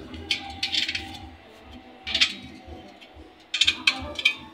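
Small steel bolts and nuts clinking against the satellite dish's metal mounting bracket as they are handled and fitted. A few sharp clinks come singly in the first half, then a quick run of clinks near the end.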